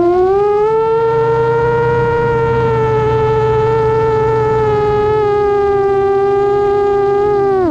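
FPV racing quadcopter's electric motors whining at a steady high pitch. The pitch climbs slightly just after the start, holds, then drops steeply at the very end.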